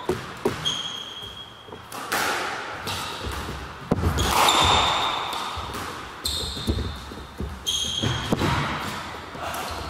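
Squash rally: sharp knocks of the ball against the rackets and the court walls, with several short high squeaks of court shoes on the wooden floor.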